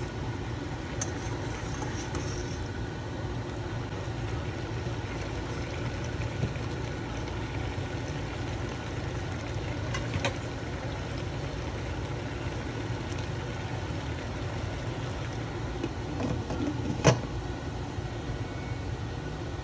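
Steady noise of pork cooking in an uncovered stainless steel pot, with a light tap about ten seconds in and a sharp metallic clink near the end as the glass lid is set on the pot.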